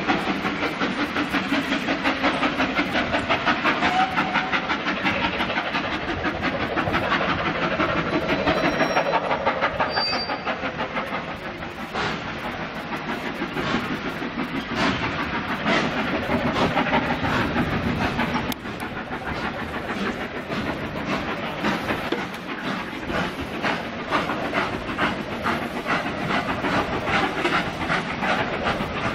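Steam locomotive working a train, its exhaust beats coming in a steady, even rhythm over a hiss.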